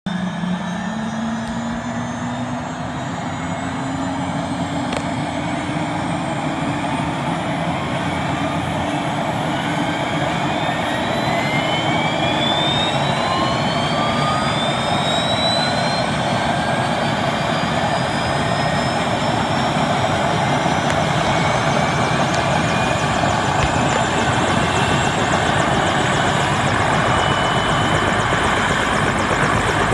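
Bell 206 JetRanger helicopter starting up on the ground: the turbine's whine rises steadily in pitch as the engine spools up and the main rotor gathers speed, the whole sound growing gradually louder.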